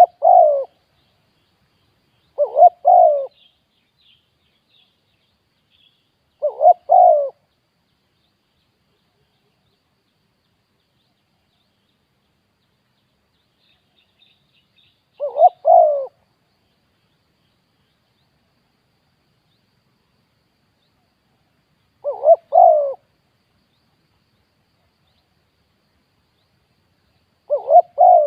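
Spotted dove cooing: six loud coo phrases at uneven gaps, each a short note followed by a longer one.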